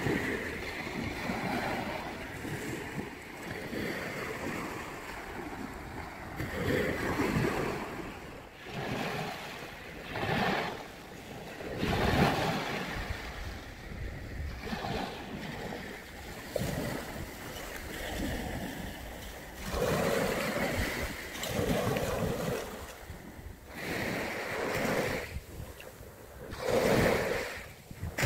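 Sea waves washing onto the shore in repeated surges every couple of seconds, with wind buffeting the microphone.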